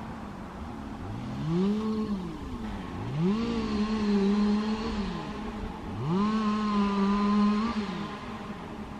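An engine revving up, holding a steady pitch for a second or two, then dropping back. It does this three times in a row.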